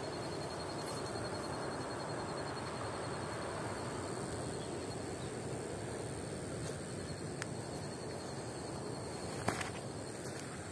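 An insect trills steadily at one high pitch over a steady rushing background, then stops about nine and a half seconds in, at the same moment as a sharp click.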